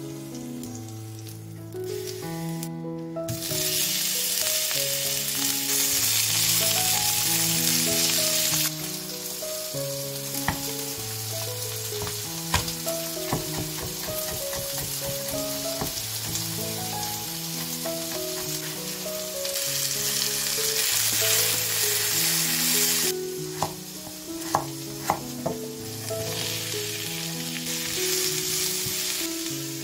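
Food sizzling in hot oil in a frying pan, starting about three seconds in, strongest in two stretches and dying down near the end, with a few light clicks. Soft background music with a slow melody plays throughout.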